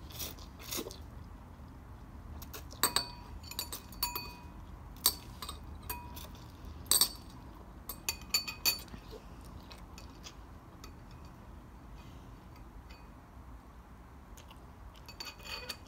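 Thin metal chopsticks clinking against a porcelain bowl, about a dozen light strikes bunched in the first half, several with a short bright ring.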